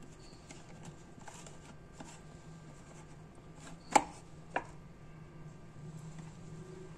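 Plastic jelly mould being handled on a glass plate, with light taps and scrapes. Two sharp plastic clicks come about four seconds in, half a second apart, as the mould's plastic lid is pulled free.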